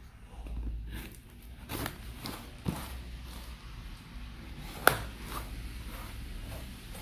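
Knife blade cutting through packing tape and cardboard along the edge of a small shipping box, with short scrapes and handling sounds, and one sharp knock or click a little before five seconds in.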